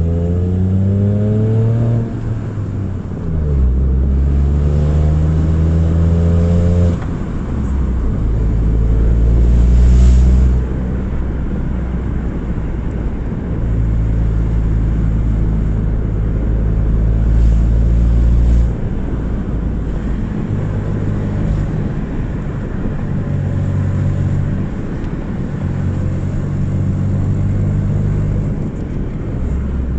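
Car engine running with a broken exhaust flex joint, giving a loud low exhaust rumble. Its pitch rises several times as the engine revs up and drops back in between.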